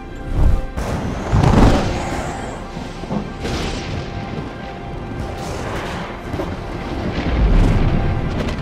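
Sustained orchestral film score with deep booms and rumbles of thunder from a gathering storm, the heaviest about a second and a half in and another near the end.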